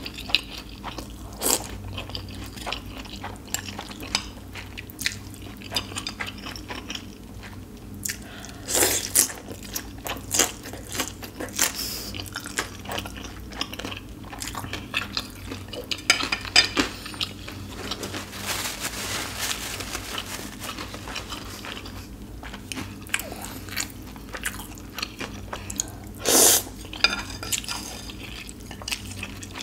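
Close-miked eating of spicy ramen noodles: a few short, loud slurps of noodles, with chewing, crunching and chopsticks clicking against the bowl in between.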